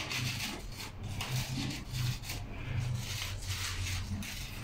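Crepe paper flowers rustling and rubbing as they are handled and fixed onto the stand, in a run of short strokes.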